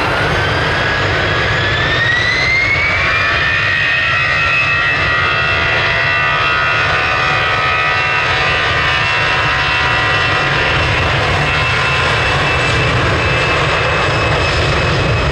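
Airbus A320's twin CFM56 turbofan engines spooling up to takeoff thrust: a whine rises over the first three seconds or so, then holds as a steady high whine over a low rumble during the takeoff roll.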